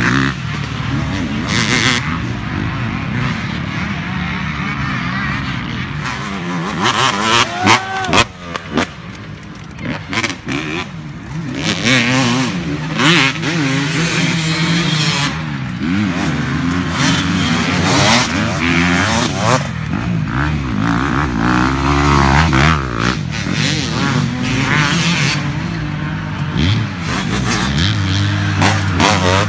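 Motocross dirt bikes racing past one after another, their engines revving up and down through the gears. The pitch rises and falls as each bike comes by, with one clear pass-by about eight seconds in.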